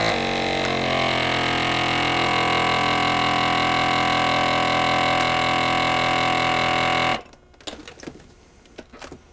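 Countertop vacuum sealer's pump motor running, drawing the air out of a pouch of pasta dough. It makes a steady hum whose pitch settles slightly lower in the first second, then cuts off suddenly about seven seconds in.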